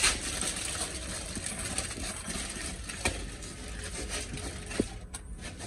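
Aluminium foil crinkling and crackling as hands press and fold it around a chicken, with a few sharper crackles along the way.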